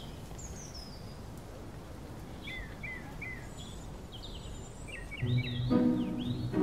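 Small birds chirping and twittering over a soft outdoor background hiss. About five seconds in, background music with sustained low notes comes in and becomes the loudest sound.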